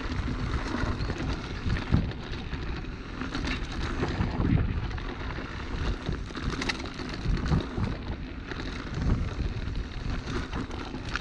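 Wind buffeting the microphone of a moving camera, a low rumbling noise broken by frequent irregular knocks and rattles.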